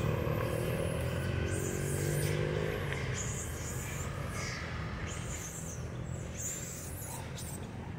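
A vehicle engine running with a steady low hum that slowly fades away over the first few seconds, with short high squeaks scattered over it from about a second and a half in.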